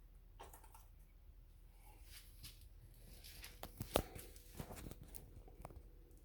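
Faint, irregular clicking and squelchy rustling from inside a wall, like small steps through mud, with the sharpest click about four seconds in; what is making it is unknown.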